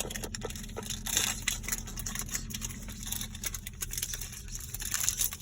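Foil Pokémon booster pack wrapper being torn open and crinkled, a string of small crackles and rustles.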